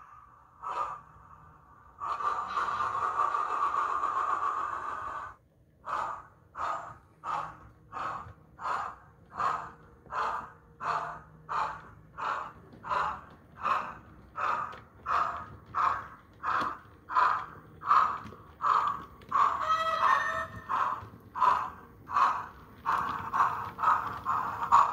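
Steam locomotive sound from a DCC sound decoder in a model of Southern Merchant Navy class 35004: a steady hiss of steam for about three seconds, then a regular exhaust chuff, about three beats every two seconds, as the locomotive runs toward the camera.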